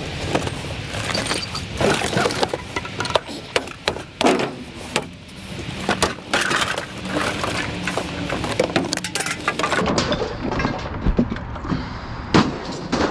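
Scrap and debris clattering and crashing: many sharp knocks, clinks and cracks, irregular and spread throughout, as metal and rubble are handled and shift around.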